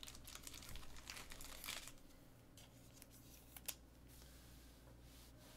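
Faint crinkling and rustling of trading cards and pack wrapping being handled, mostly in the first two seconds, with a couple of soft clicks later.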